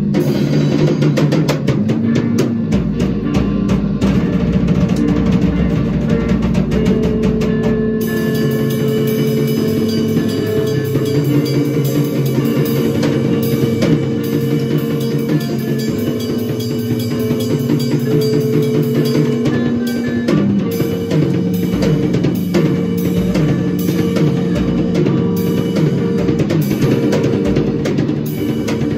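Loud improvised noise jam: a drum kit played hard and fast under an electric bass holding long, droning notes that shift pitch now and then. Recorded through a single cell-phone microphone.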